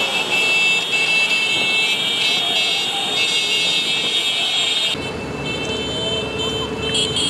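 A large convoy of small motorbikes and scooters riding past, engines running, with horns held and sounding over the engine noise. The low engine rumble grows louder about five seconds in.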